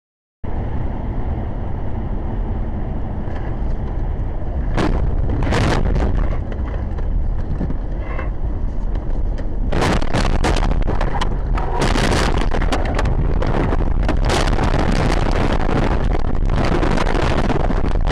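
Car noise picked up by a dashcam microphone: a loud, steady rumble of road and wind noise, broken by sharp bangs and knocks about five seconds in and again in a run from about ten seconds on.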